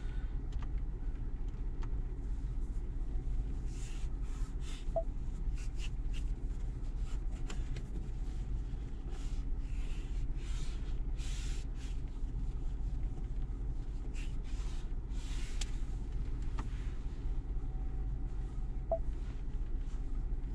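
Steady low hum of the 2021 Ford Bronco idling with the heat on, heard inside the cabin. Short soft swishes come and go over it as the touchscreen is rubbed clean with an alcohol swab.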